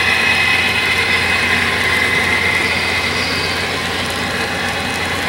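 HO-scale model freight train running past, a steady mechanical running noise with no distinct clicks.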